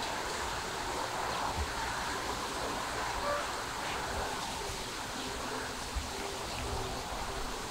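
Steady rushing outdoor background noise, with a few faint low thumps.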